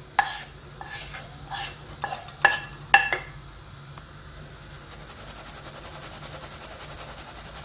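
A metal pan clinks and scrapes against a stainless-steel fine-mesh sieve as toasted flour is tipped in, with several short ringing metal knocks. After about four seconds the sieve is shaken rapidly, giving a fast, even rustle of flour sifting through the mesh to break up lumps.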